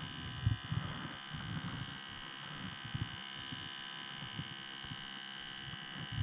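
Steady hum made of several fixed high tones, with scattered soft low thumps.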